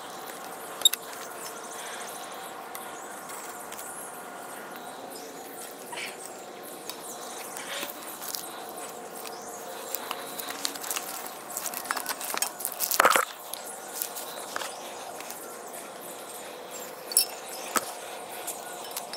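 Tree-climbing gear being handled against a tree trunk: scattered clicks and knocks of climbing sticks and their straps, with a burst of clattering about two-thirds of the way through and sharp clicks near the start and near the end, over a faint steady hum.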